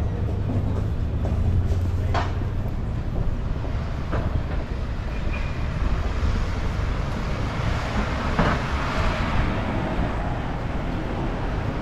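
Busy city street ambience: a steady rumble of road traffic, with a couple of short sharp knocks in the first few seconds and a vehicle passing, louder, around eight to nine seconds in.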